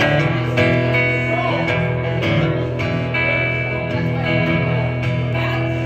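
Acoustic guitar strummed in a slow, steady rhythm of about two strums a second, playing a song's instrumental intro before the vocals come in.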